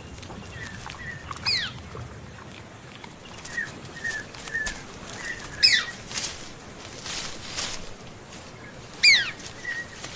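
Forest birds calling: three sharp falling whistles about four seconds apart, with short chirps between them. Brief rustles come around the middle.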